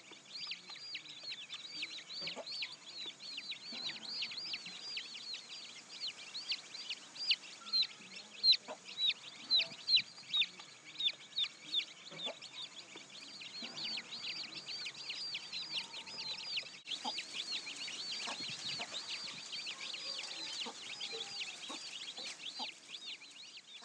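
Domestic chicks peeping without a break: short, high cheeps that fall in pitch, several a second.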